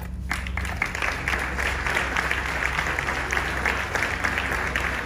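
Audience applauding, a dense patter of many hands clapping that starts about a third of a second in.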